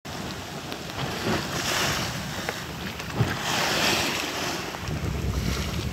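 Water rushing and splashing along the bow of a jangada sailing through choppy sea. The spray hiss surges as waves break past, over wind buffeting the microphone, with one brief knock about three seconds in.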